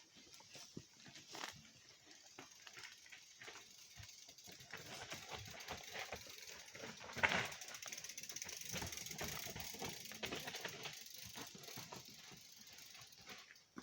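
Mountain bike coasting past on a rocky trail, its rear freewheel ticking in a fast buzz, with scattered clicks of tyres on stones. It is loudest about seven seconds in.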